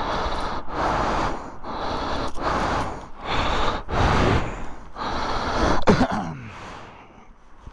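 Heavy, fast breathing close to the microphone, puffs following each other about once a second, with a sharp click about six seconds in.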